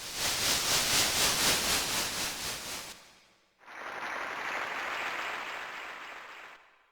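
Two sound samples played from a phone piano app, each a rush of noise. The first pulses and fades out about three seconds in. The second starts half a second later, runs steadier and fades out near the end.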